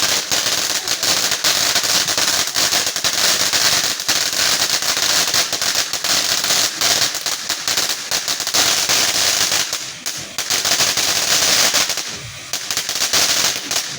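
Firecrackers going off in a fast, continuous string of sharp pops and crackles, easing briefly twice near the end before stopping suddenly.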